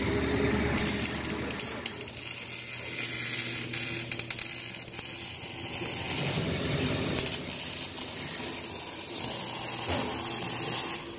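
Steel fabrication shop tool noise: scattered metallic clicks and clatter over a steady background noise.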